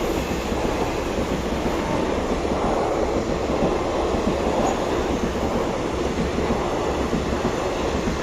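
A passing train: a loud, steady noise of wheels and carriages running over the track.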